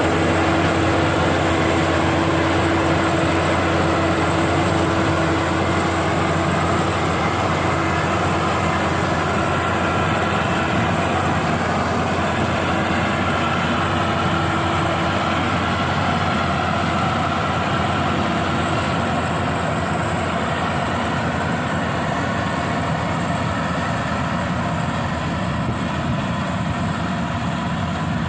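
Rice combine harvester running steadily under load, engine and threshing machinery together, with a steady high whine throughout. A low hum in the sound drops away about halfway through.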